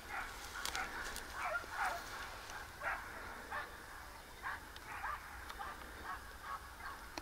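Hunting dogs barking and baying in the distance, a dozen or so short, irregular barks. This is typical of hounds working a boar drive.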